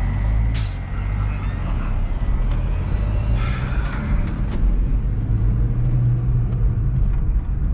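Steady low rumble of engine and road noise inside a 2004 Volkswagen Golf's cabin while it is driven, with a short hiss about half a second in.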